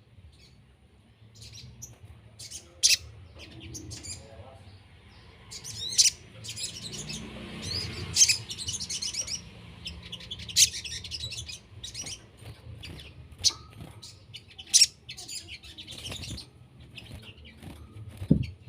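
Small bird chirping: short, sharp high-pitched calls repeated at irregular intervals, with louder ones about 3, 6, 8, 10 and 15 seconds in, over a faint low hum.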